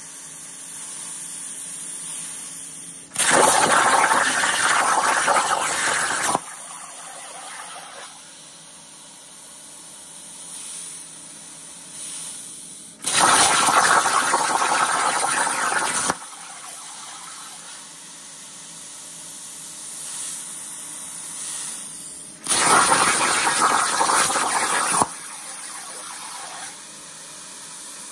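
Everlast 82i plasma cutter on a CNC table firing three separate cuts through steel plate, each a loud, harsh hiss of about three seconds that starts and stops abruptly as the arc switches on and off. A quieter steady hiss runs between the cuts.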